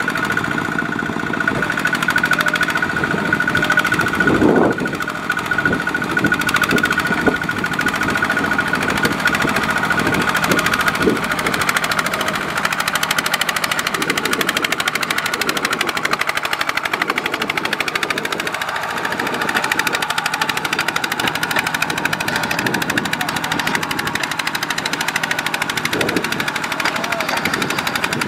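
Single-cylinder diesel engine of a two-wheel walking tractor running hard with a rapid, steady knocking beat, under load as it drags a trailer of rice sacks through deep mud.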